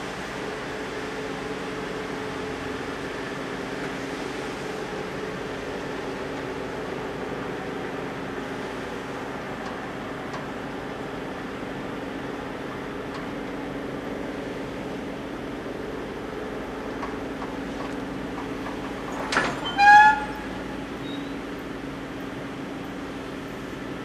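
Plasser & Theurer 08-32U multiple tie tamper's diesel engine running steadily, a constant mechanical hum. About three-quarters of the way through, its horn gives two short toots, the second a little longer and the loudest sound.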